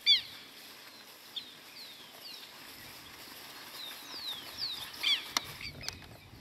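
Birds chirping: a sharp cluster of quick downward-sweeping chirps at the start and again about five seconds in, with fainter single downward chirps between.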